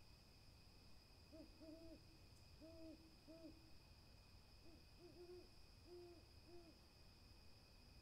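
An owl hooting softly: a series of short, low hoots, mostly in pairs, about nine in all, over a faint steady high-pitched hum.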